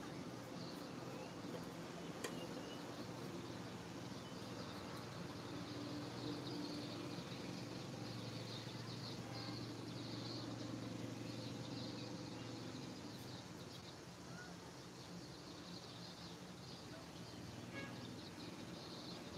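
Faint outdoor ambience: a steady low hum with a high chirping that is strongest in the middle.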